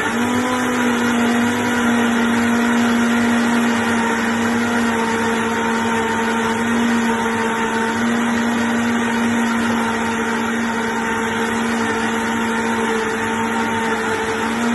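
Vitamix blender running at high speed, blending a thick vegetable soup: a loud, steady whir whose pitch steps up slightly right at the start.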